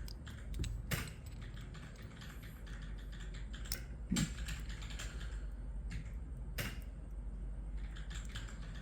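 Small, sharp plastic clicks and taps from a tactile mechanical keyboard switch being pried open, its housing clips and stem clicking, with a few louder snaps about a second, four seconds and six and a half seconds in.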